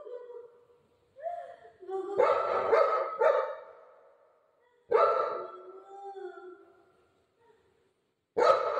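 Golden retriever barking in short groups of barks a few seconds apart: a brief rising call, then a cluster of three, then single barks.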